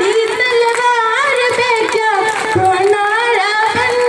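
A young female voice singing a slow melody unaccompanied, with long held notes that bend and turn.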